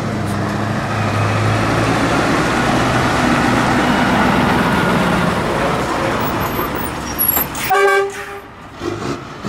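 Scania R580's 16-litre V8 running loud through open standing exhaust pipes as the truck passes, fading after about seven seconds. About eight seconds in, a short horn blast.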